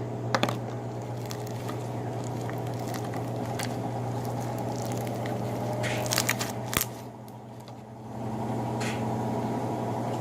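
Slime being kneaded and squished by hand, giving scattered short wet clicks and squelches, with a brief cluster about six seconds in. Under it runs a steady low machine hum that drops away for about a second near the three-quarter mark.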